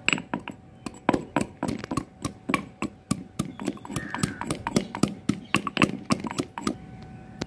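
Stone pestle pounding a small piece of fresh ginger in a black stone mortar: quick repeated knocks, about three to four a second, stopping shortly before the end.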